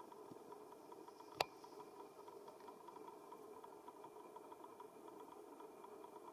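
Faint steady hum with no changes, broken once by a single sharp click about a second and a half in.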